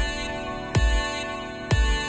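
Electronic background music: sustained synth tones over a bass kick that drops in pitch, striking about once a second.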